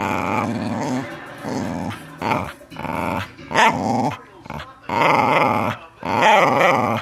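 Dog growling in several drawn-out, wavering bouts with short breaks between them; a playful, 'talking' growl rather than a bark.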